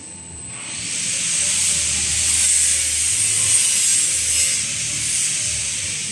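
Steel 200-litre drums running along a metal roller conveyor, a rasping rolling noise that swells about a second in and fades near the end.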